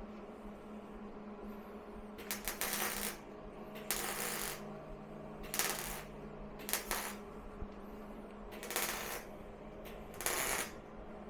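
Welding arc on a car's thin-walled exhaust pipe: about six short bursts of crackling sizzle, each under a second, as the welder lays short stitches. A steady low hum runs underneath.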